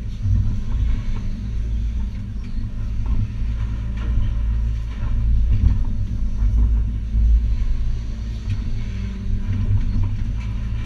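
Hitachi ZX280 excavator's diesel engine and hydraulics working, a steady deep rumble heard from inside the cab, with a few faint knocks and crunches of demolition rubble.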